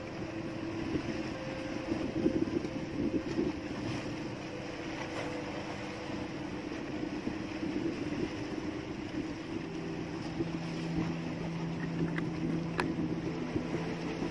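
Steady low engine rumble on a small outrigger fishing boat, mixed with wind and water noise. A second steady low hum joins about ten seconds in, and a single sharp click comes near the end.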